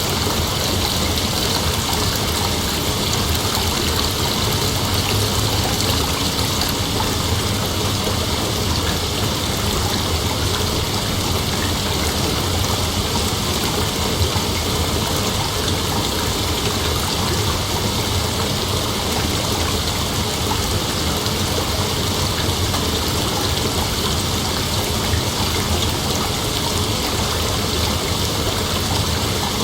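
Steady rain, an even unbroken hiss with no thunder.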